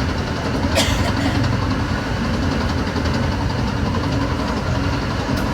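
Metra BNSF commuter train running along the line, a steady low rumble throughout, with a brief sharp high-pitched sound falling in pitch about a second in.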